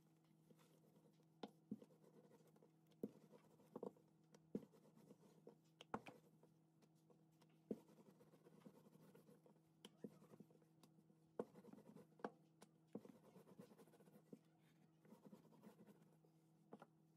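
Wooden rolling pin rolling out dough on a floured countertop: faint scraping with irregular sharp knocks as it goes back and forth, over a steady low hum.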